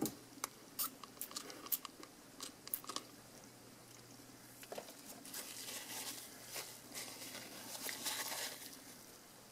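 Glass cleaner going onto a small LCD glass plate over a paper towel, a string of short sharp clicks and crinkles in the first three seconds, then a folded paper towel rubbing across the glass, a soft rustling wipe that swells near the end.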